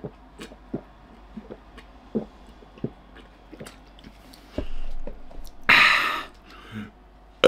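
A man gulping milk straight from a carton, with a faint swallowing click every half second or so. About two thirds in there is a low thump as the carton is lowered, followed by a loud breathy gasp out.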